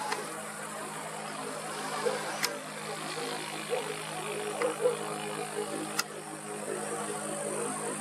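A steady engine hum with a faint high hiss above it, and two sharp clicks, about two and a half and six seconds in.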